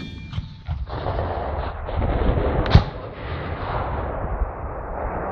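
Rolling echo of a Carl Gustav recoilless rifle shot over open ground. About three seconds in, a single sharp distant bang follows: the m/48 fragmentation grenade air-bursting over the targets some 400 m away.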